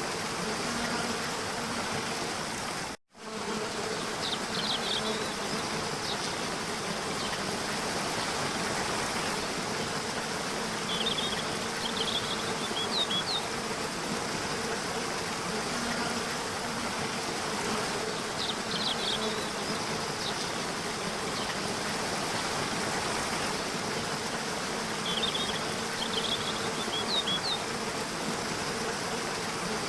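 Steady rush of a waterfall with a steady buzzing drone over it, and little groups of short high chirps that recur about every seven seconds. The sound cuts out completely for a moment about three seconds in.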